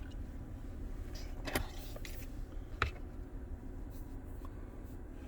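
Handling noise in a vehicle cabin: two short knocks, a little over a second apart, as the camera and hand bump against dash and cup-holder trim, over a steady low hum.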